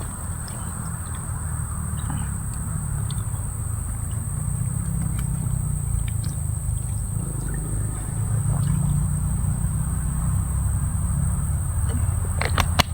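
Steady low rumble under a constant high-pitched buzz, with scattered faint clicks and a short run of sharper clicks near the end.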